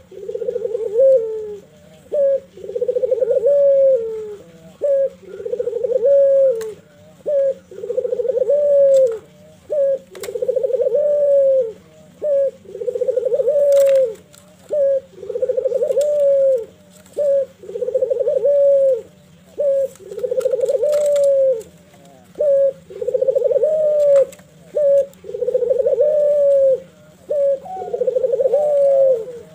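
Ringneck dove (puter) cooing over and over in its bowing display: short notes alternating with long coos that rise in pitch at the end, about one every two seconds.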